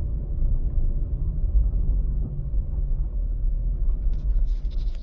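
Steady low rumble of a car driving, heard from inside the cabin. Near the end, a few short clicks and rustles of something being handled.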